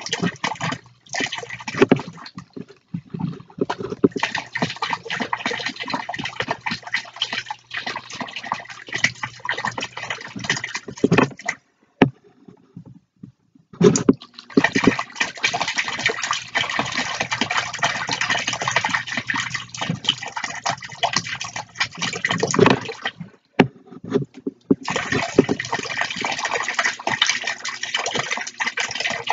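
Water from small fountain jets splashing into a plastic tub. The splashing stops for about two seconds around twelve seconds in, when the main jet cuts out, and again briefly near twenty-three seconds.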